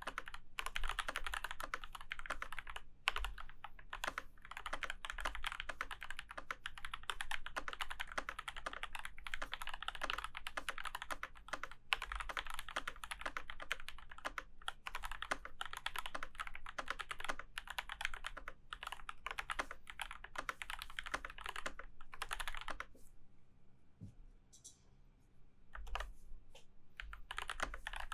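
Womier Retro M87 75% mechanical keyboard being typed on fast and steadily, a dense run of key clacks that stops for a few seconds about 23 seconds in, then resumes.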